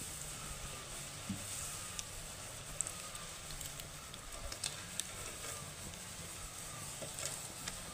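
Hot oil sizzling in a black iron kadai as rosette cookies and strands of batter fry, with sharp pops and crackles at irregular intervals, roughly one a second.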